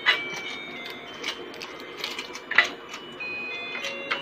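Plastic clicks and knocks as the battery cover and hollow plastic base of a toy fishing game are handled, about five sharp clicks spread across the few seconds. Thin, faint high tones hold steady underneath, changing pitch now and then.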